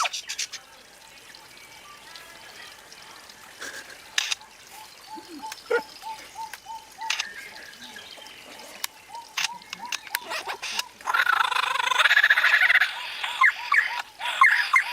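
A bird mimicking mechanical and electronic sounds: a long run of short repeated notes at about two or three a second, scattered sharp clicks like a camera shutter, and a louder burst of warbling, laser-gun-like calls about eleven seconds in.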